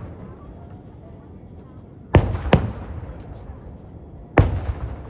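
Fireworks shells bursting overhead: two sharp booms about half a second apart about two seconds in, then a third boom a couple of seconds later, each with a short rumbling tail.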